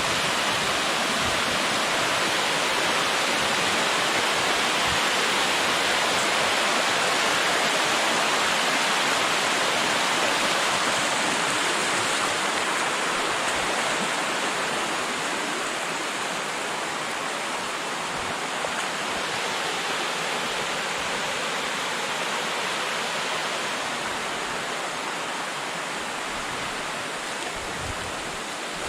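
Waterfall and river cascade water rushing in a steady, dense roar. It eases a little in loudness about halfway through.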